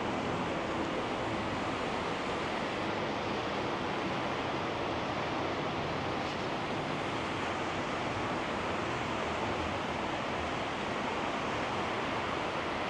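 Steady heavy rain falling in a thunderstorm: an even, unbroken hiss.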